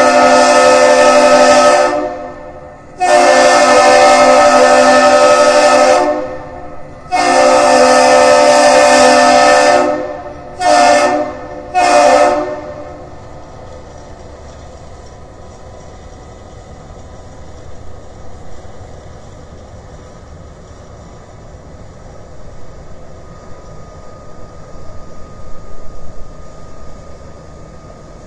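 The horn of the Great Lakes freighter Philip R. Clarke sounding a long blast that ends about two seconds in, two more long blasts, then two short ones: the three-long, two-short master's salute. A low steady rumble carries on after it.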